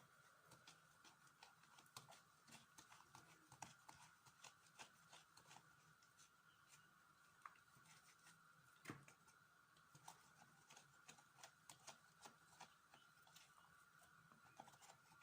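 Faint, irregular small clicks and scrapes of a coring knife hollowing out small eggplants, with one louder knock about nine seconds in, over a faint steady tone.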